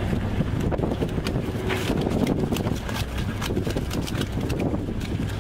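Boat engine running steadily under wind on the microphone, with scattered clicks and scrapes from the live crayfish crowded in the hauled pot.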